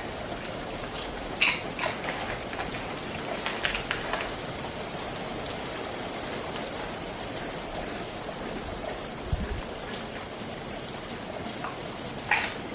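Steady rain with an even hiss, broken by a few short, sharp crackles: two near the start, a couple about four seconds in, and one near the end.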